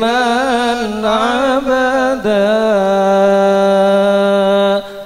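Sholawat, the Islamic prayer-song upon the Prophet Muhammad, chanted by a man into a microphone. Ornamented, wavering phrases give way to one long held note that breaks off near the end.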